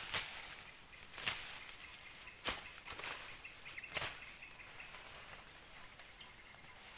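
A high, steady insect drone, with a few swishing footsteps through dense ferns and undergrowth, about one every second and a quarter, that stop about four seconds in.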